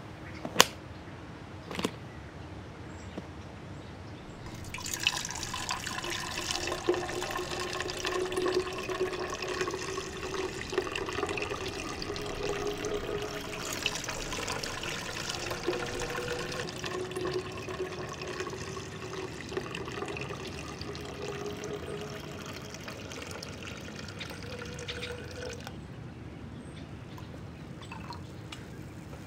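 Liquid poured steadily from a bottle into a plastic graduated cylinder for about twenty seconds, with a hollow ringing tone from the filling cylinder, then cut off suddenly. Two sharp clicks about a second apart come just before it.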